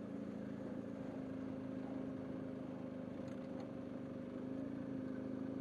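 A motor vehicle's engine running at a steady speed, an even, constant hum.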